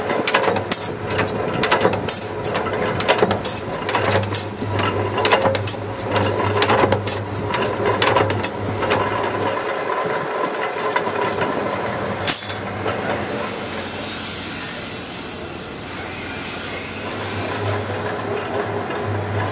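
Belt-driven flywheel power press cutting steel knife blanks from strip: a quick run of sharp metal clanks from the ram and die over the steady hum of the running machine. The clanking stops about halfway through, gives one lone clank a little later, then a patch of hiss, and resumes with a few clanks near the end.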